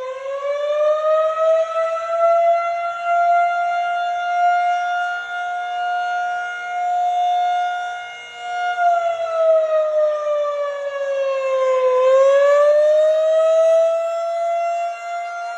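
Federal Signal 2001-SRN rotating outdoor warning siren sounding a test wail. Its pitch rises and holds high, falls away about nine seconds in, then climbs again near the end, and its loudness wavers as it sweeps.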